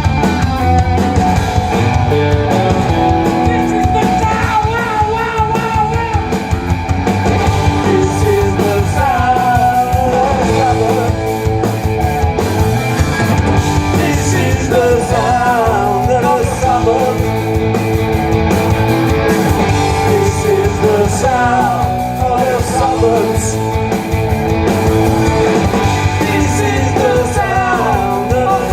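Punk rock band playing live and loud: electric guitars, bass and drums on a steady driving beat.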